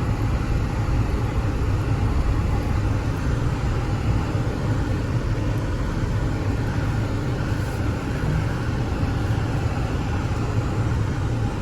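Strong storm wind blowing steadily across the microphone, a dense low rumble of buffeting with a hiss above it.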